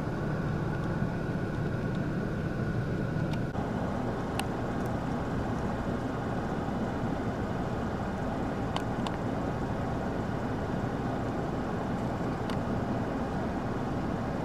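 Steady low vehicle rumble. A higher hum drops out about three and a half seconds in, and a few faint, short, high clicks come through.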